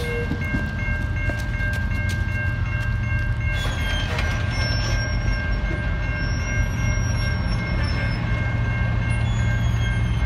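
Railroad crossing bell ringing steadily while the crossing signals are active, with a steady low rumble underneath as a freight train approaches.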